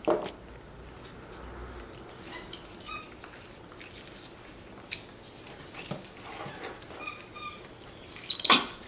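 Capuchin monkey giving a few soft, short, high peeps while eating apricot, with small clicks of handling at the table. A louder sharp sound comes near the end.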